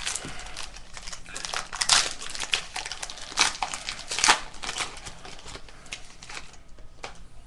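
Foil trading-card pack wrapper being crinkled and torn open by hand: a dense run of sharp crackles, loudest about two seconds and about four seconds in, thinning out after about six and a half seconds.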